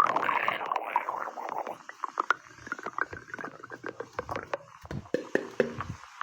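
Stomach growling and gurgling: a louder rumble in the first second or so, then a long run of irregular small gurgles and pops.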